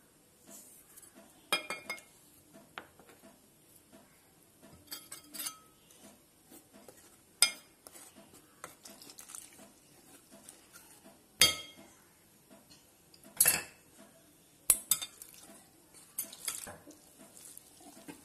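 A metal spoon and then a wire whisk stirring dry flour and cornflour in a glass mixing bowl. Sharp clinks against the bowl come a few seconds apart, with soft scraping and rustling of the powder between them.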